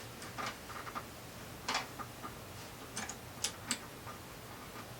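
Small clicks and taps of metal parts being handled on a Singer 600 Touch N Sew sewing machine, a handful of irregular clicks, the loudest a little under two seconds in.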